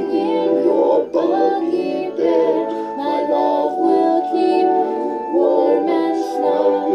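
A lullaby sung slowly over soft instrumental accompaniment, a cartoon soundtrack played through a TV's speakers.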